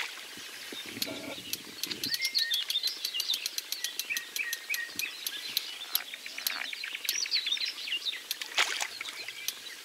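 Songbirds chirping and calling. About a second in there is a burst of splashing as a carp thrashes at the surface, refusing to go into the keepnet.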